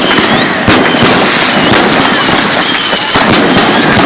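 Consumer fireworks going off in rapid succession: dense crackling and popping with whistles sliding up and down in pitch, and a sharper bang about 0.7 seconds in.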